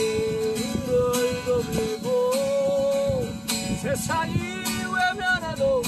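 Acoustic guitar strummed steadily while a harmonica in a neck rack plays the melody in long held, bending notes, climbing higher about four seconds in.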